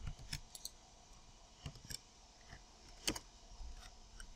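Faint, scattered computer keyboard keystrokes, a few separate clicks with one louder click about three seconds in.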